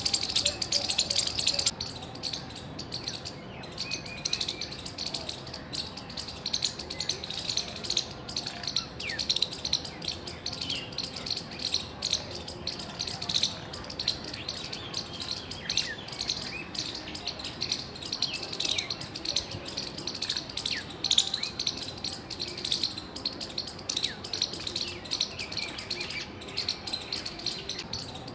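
Squirrel chirping: rapid, repeated high-pitched calls with many short down-sliding chirps. A louder, denser stretch stops about two seconds in, and the chirping carries on at a lower level.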